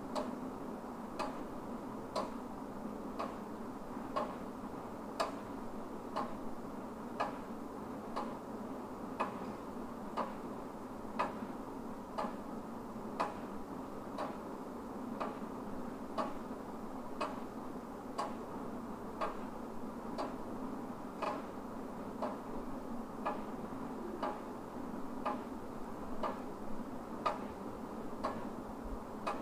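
Wall clock ticking steadily, about one tick a second, some ticks louder than others, over a faint steady hum.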